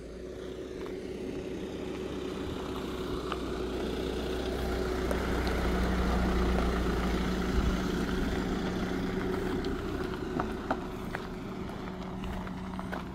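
A Fiat car's engine running at low speed as the car crawls over a rocky stretch of track, growing louder as it comes closer, loudest about six seconds in, then slowly fading. A few sharp clicks are scattered through it.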